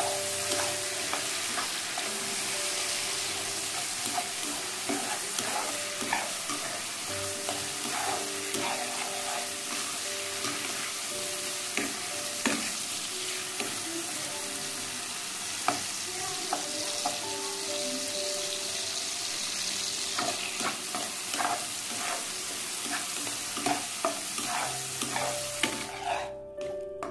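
Diced potatoes and carrots sizzling as they fry in hot oil in an aluminium pan, with a spatula now and then knocking and scraping against the pan. The vegetables are being cooked in the oil until soft. The sizzling drops away near the end, leaving a quick run of spatula knocks.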